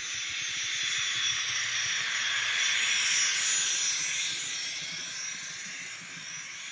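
Gas-turbine sound effect from the sound decoder of an N scale ScaleTrains Union Pacific GTEL 'Big Blow' turbine model, played through its small onboard speaker: a steady jet-like rushing hiss that swells to a peak about three seconds in and then fades.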